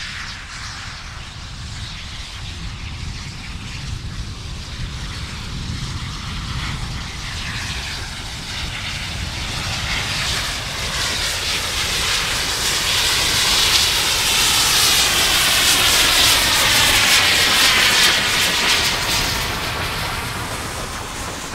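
K-36 narrow-gauge steam locomotive passing under load, its exhaust growing steadily louder to a peak about two-thirds of the way through and then easing as the coaches roll by.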